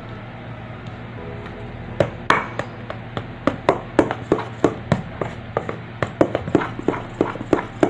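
A spoon stirring blue food colouring into whipped egg-white meringue in a stainless steel bowl, clinking against the bowl about three times a second from about two seconds in.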